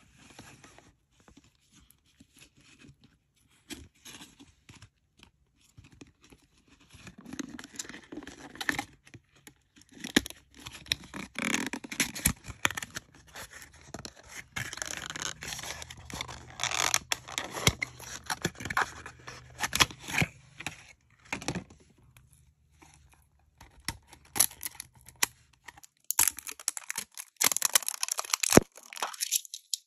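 Cardboard toy box being torn open along its perforated strip and handled: irregular tearing, scraping and crinkling with sharp clicks, coming and going, louder again near the end.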